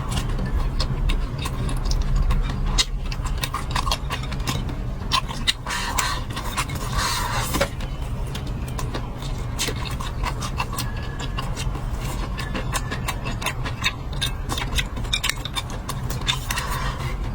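Eating sounds at close range: many short sharp clicks and crunches of chewing and of utensils on dishes, over a steady low hum.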